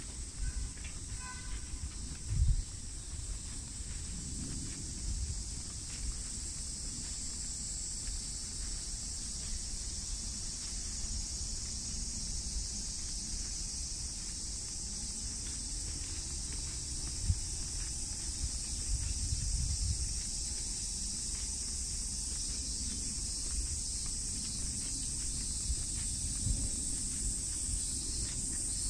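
Steady high-pitched drone of insects, over a low rumble. There is a sharp thump about two seconds in and a smaller one midway.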